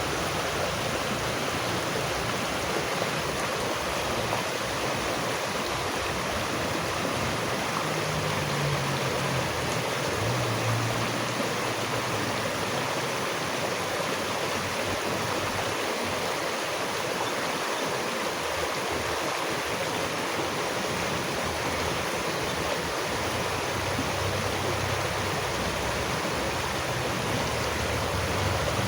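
Running water rushing steadily, an even unbroken sound without pauses.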